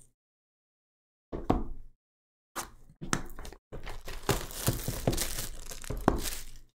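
Plastic shrink wrap on a sealed trading-card box crinkling and tearing as it is handled and pulled off: two short bursts of rustling with sharp crackles, then continuous crinkling from about three seconds in.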